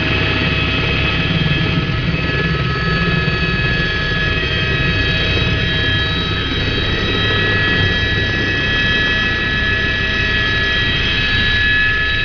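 Helicopter in flight, heard from aboard: a steady low rotor and engine rumble with a continuous high turbine whine made of several steady tones.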